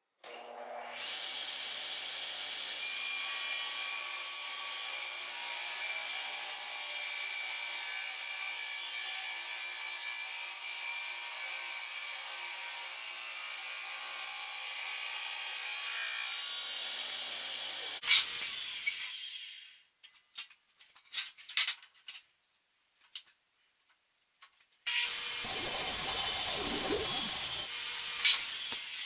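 Table saw running steadily and trimming the end of a glued-up panel of red oak, poplar and cedar. A sudden loud burst comes about 18 seconds in, followed by a few knocks and clatters, and a second loud stretch of sawing comes near the end.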